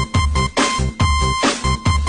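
Electronic dance music with a heavy bass beat, about three beats a second, under held synth tones.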